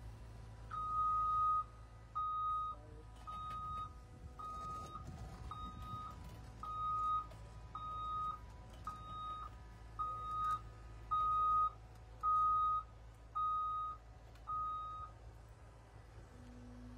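Excavator's backup alarm beeping about once a second, about thirteen steady single-pitched beeps that stop near the end, over the low steady rumble of the machine's engine.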